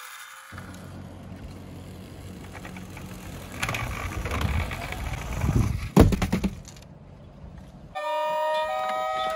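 Tomica toy minicars rolling across a hard surface with a steady rattle and rumble that grows louder midway, and a sharp clack about six seconds in. A music jingle starts near the end.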